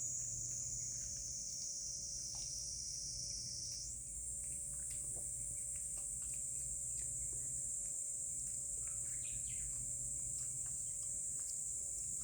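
A steady chorus of insects, a dense high-pitched shrill that shifts up in pitch about four seconds in, with faint scattered clicks beneath it.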